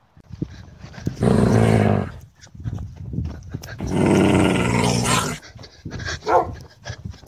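A dog growling loudly, two long growls, about a second in and again around four seconds in, followed by shorter, uneven sounds.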